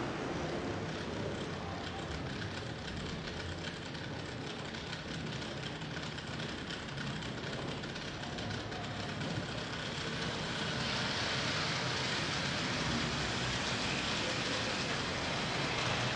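N-scale model train running: a steady whirr from the small electric motor and the wheels on the rails, with faint light clicking. It grows brighter about ten seconds in as a train approaches.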